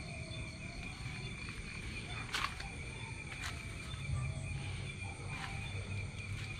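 Night insects such as crickets trilling steadily in a high, unbroken tone, with a few short sharp clicks over it.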